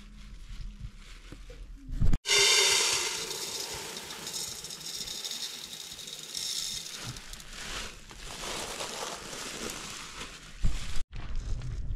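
Dry lentils poured from a plastic bag into a metal pot: a rushing rattle of grains on metal. It starts suddenly a couple of seconds in, is loudest at first and thins out, then stops abruptly near the end.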